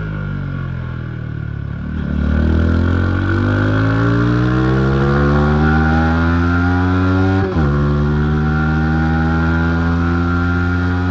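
Yamaha MT-15's single-cylinder engine with the revs falling on a closed throttle, then accelerating hard from about two seconds in. The revs climb steadily, drop sharply at an upshift about seven and a half seconds in, and then climb again in the next gear.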